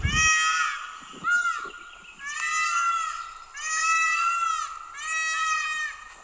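Peacock calling, a series of about five loud, wailing calls, each rising and then falling in pitch and lasting under a second, repeated roughly once a second.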